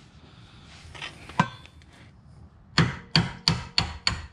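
Hammer striking the end of a long socket extension, driving a lower control arm part up into place, metal on metal. One knock about a second and a half in, then steady blows about three a second from near the end.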